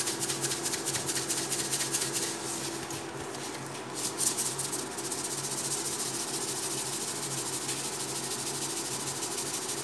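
Pot of coconut milk and taro boiling on the stove: a steady hiss with fine crackling of bursting bubbles, and a brief louder bump about four seconds in.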